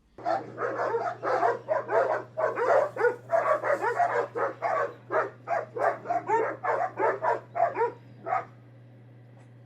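A dog barking and yipping in a rapid, unbroken run of short, high calls, about three a second, stopping about eight seconds in. A steady low hum runs underneath.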